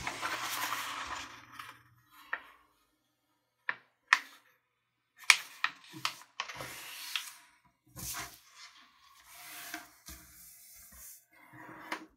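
A sheet of letter-size paper being folded in half by hand: rustling and sliding of the paper as it is brought over and the crease is smoothed down, in several spells separated by short quiet gaps and a few sharp taps.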